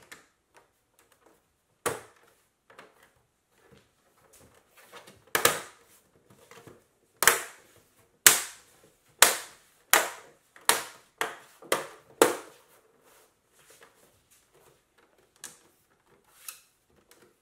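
Plastic rear cover of a Dell U3415W monitor being pressed back onto its frame, its retaining clips snapping into place one after another: about a dozen sharp snaps, most in a quick run through the middle, with a couple of fainter ones near the end.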